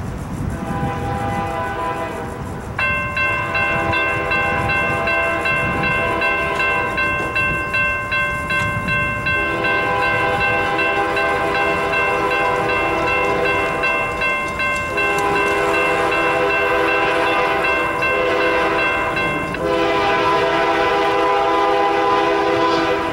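Freight locomotive's multi-chime air horn sounding long blasts with short breaks for a grade crossing. Over it the crossing warning bell rings from about three seconds in, then falls silent near the end as the gates finish coming down.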